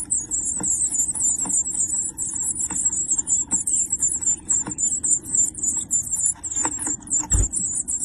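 Tit nestlings begging: a continuous chorus of rapid, high-pitched cheeps while a parent feeds them. Light knocks and scrabbling come from inside the wooden nest box, with one heavier thump about seven seconds in.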